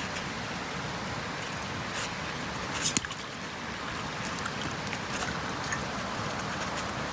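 Wood fire crackling: a steady hiss with scattered small pops and one louder snap about three seconds in.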